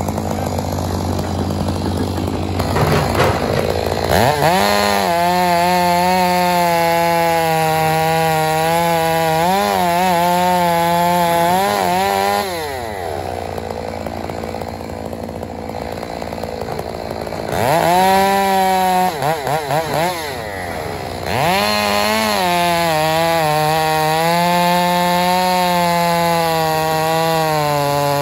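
Two-stroke chainsaw cutting wood, its engine pitch sagging and recovering as the chain bites. About twelve seconds in it drops back to idle for a few seconds. It is then revved up again with a few quick blips of the throttle and goes back into the cut.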